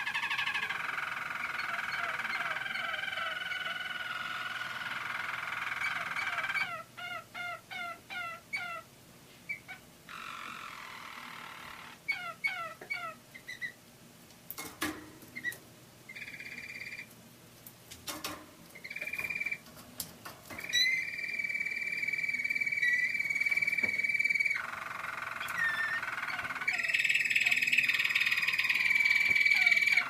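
Roller canary singing. A warbling song first, then a run of short repeated notes at about three a second, then long, steady, unbroken rolls near the end.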